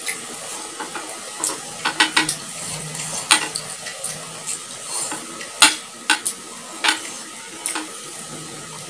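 Close-up eating sounds: wet chewing and sharp, irregular mouth-smacking clicks from someone eating raw shrimp and rice by hand, over a steady hiss.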